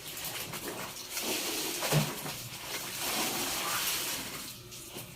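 Water sloshing and splashing as laundry is rinsed by hand in a basin, with a single knock about two seconds in.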